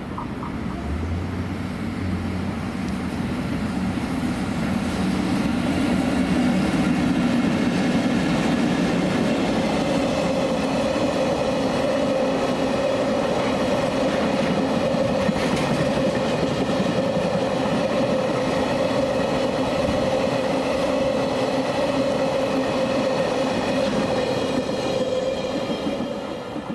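JR Freight EF64 DC electric locomotive running by with its train: a steady rolling rail noise that grows louder over the first several seconds and then holds, with a steady hum coming in about ten seconds in.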